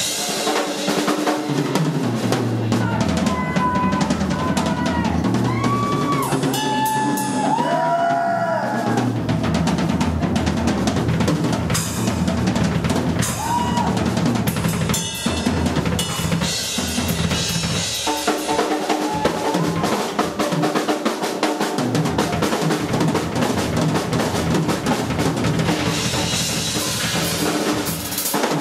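Heavy metal band playing live, with the drum kit driving on bass drum, snare and cymbals. A lead line of bent notes, rising and falling, stands out from about three to nine seconds in.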